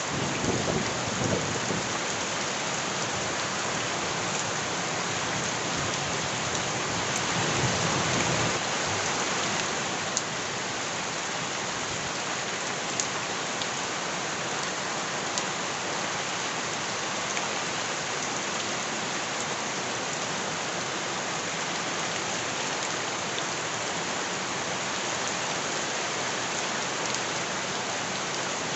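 Heavy rain falling steadily, with low rumbles of thunder right at the start and again about eight seconds in.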